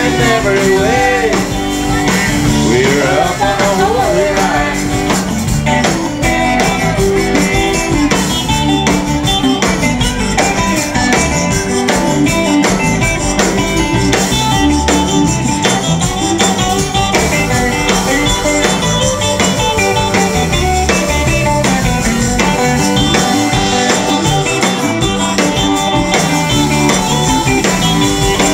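Live rock band playing an instrumental break between verses: electric guitars, bass and drum kit, with a rubboard scraped along in time.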